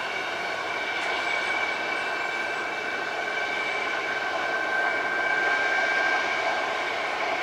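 Antonov An-124's four D-18T turbofans running at low power as the freighter taxis: a steady jet whine with two high, even tones over a rushing hiss, growing a little louder about five seconds in.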